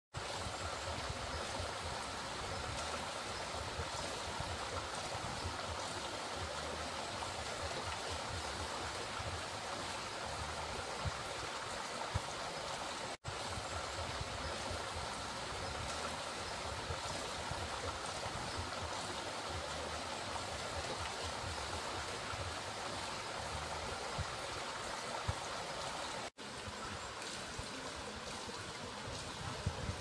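Water running and splashing at a wooden waterwheel, a steady even rush. It cuts out for an instant twice.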